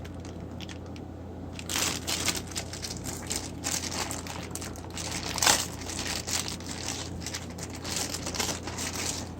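Plastic packaging crinkling and rustling in irregular bursts as it is handled, over a steady low hum.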